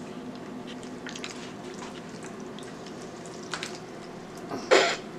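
Set Jello squelching and dripping as a pair of headphones and their cords are pulled out of a plastic tub, with one short, loud burst of sound near the end.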